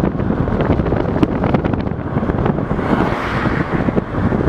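Wind buffeting the microphone over the rumble of a moving car, with short crackles and a brief rise in hiss about three seconds in.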